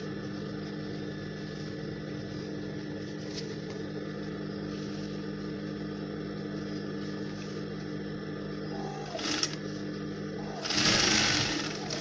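Industrial sewing machine's motor running with a steady hum, broken by a short, louder burst of noise about eleven seconds in.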